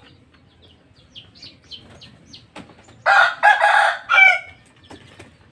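A rooster crows once about three seconds in, a loud call lasting about a second and a half that ends on a falling glide.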